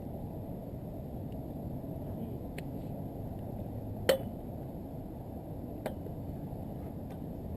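Steady low background rumble of an outdoor lacrosse field, broken by one sharp, ringing clack about four seconds in and a fainter clack near six seconds.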